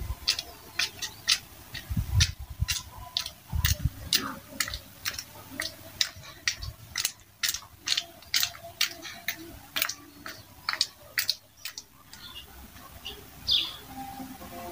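A regular series of short, sharp clicks, about three a second, that stops about twelve seconds in. Near the end there is a brief high call.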